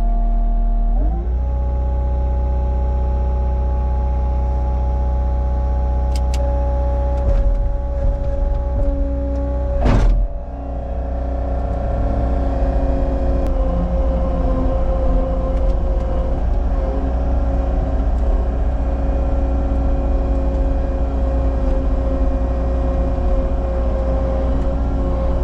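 Cat 279 skid steer's diesel engine running steadily under load. It revs up about a second in. Near ten seconds in a brief sharp sound with a wavering sweep stands out, and then the engine settles back to a steady run.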